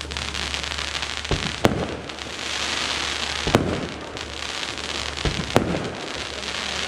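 Pyroweb Prisma firework battery firing crackling lances: a dense, continuous crackling, with several sharp bangs as the shots go off.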